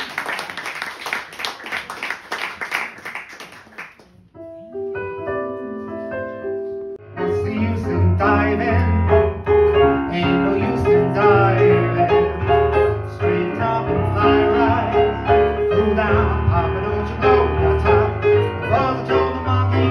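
Audience clapping dies away. About four seconds in, a piano intro of held notes begins, and about seven seconds in a full backing track comes in with bass and a steady beat.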